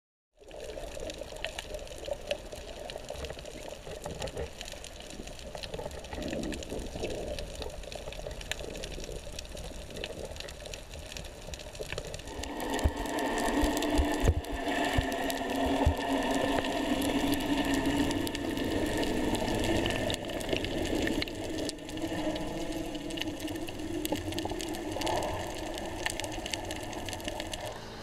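Muffled underwater sound picked up by a camera in a waterproof housing: water rushing and crackling with many small clicks. From about halfway through it grows louder and a steady drone joins in.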